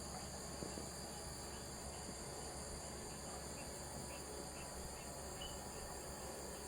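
Insects chirring steadily at a high pitch, with a few faint short chirps now and then.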